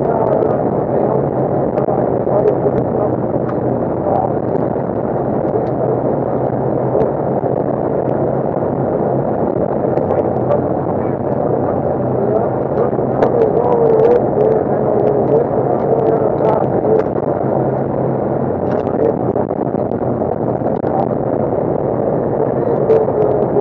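Side-by-side UTV running steadily along a gravel road: engine, tyre noise on gravel and rattling of the open cab, with scattered small clicks.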